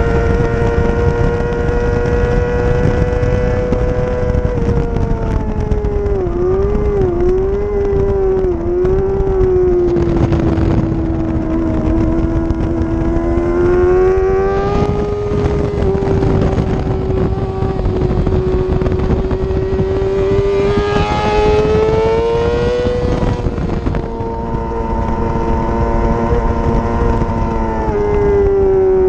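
Yamaha R6 600 cc inline-four racing engine at high revs, heard onboard with rushing wind. Its pitch holds steady on the straights, drops and wavers a few seconds in as the rider slows for a corner, and climbs again on the throttle, rising then falling near the middle and dropping once more near the end.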